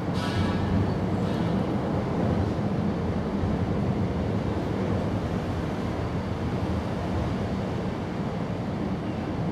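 Steady low background rumble. A kitten gives one short, high mew about half a second in.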